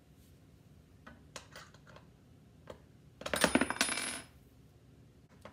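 A few light clicks of chair hardware being handled, then about a second of loud metallic clinking and jingling about three seconds in, as small metal parts rattle against the chair's metal wire leg frame.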